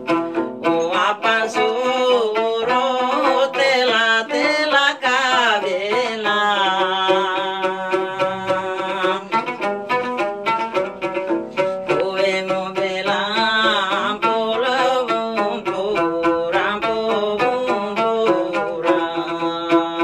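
A woman singing a Muna pantun in a wavering voice with long, bending held notes while plucking a gambus, a small pear-shaped wooden lute, whose quick plucked notes run steadily under the voice.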